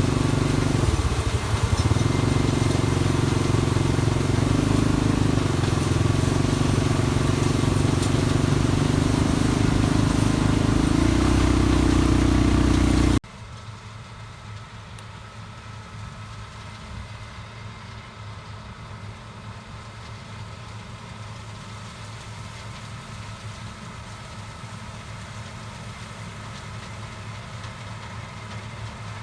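Combine harvester running steadily, with a strong low engine hum. About halfway through it cuts off abruptly to a much quieter steady low machine hum.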